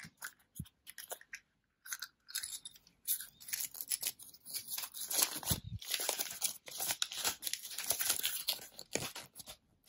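A few sharp plastic clicks as a Kinder toy capsule is prised open, then a thin folded paper instruction leaflet is unfolded and handled, crackling and rustling for several seconds.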